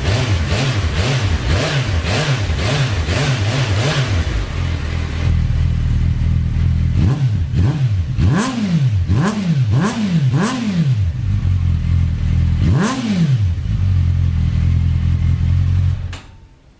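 Suzuki Bandit 650's inline-four engine through an aftermarket Roncar Coyote 2-way exhaust, blipped quickly about twice a second for a few seconds, then idling. It is revved higher about six times and once more after a pause, then stops suddenly near the end.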